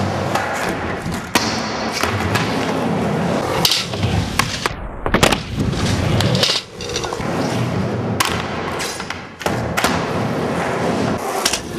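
Skateboard wheels rolling over ramps and concrete, broken by several sharp clacks and thuds as the board pops and lands.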